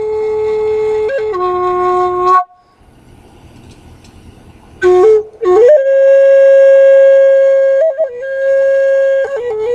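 Solo flute music: slow, long-held notes joined by short slides, broken by a pause of about two seconds early on. The longest note is held for about two seconds near the middle.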